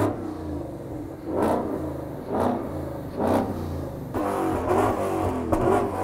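Car engine idling with about four quick throttle blips, then held at raised revs for the last couple of seconds.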